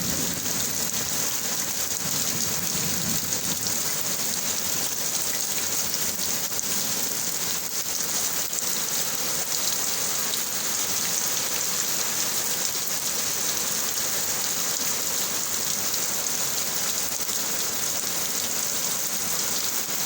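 Heavy rain falling steadily, an even hiss of drops on surfaces. The low rumble of thunder dies away in the first few seconds.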